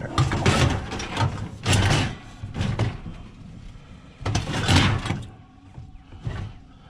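A heavy piece of scrap is tipped and shoved into a vehicle's cargo space, scraping and bumping in several separate pushes, the longest about four seconds in.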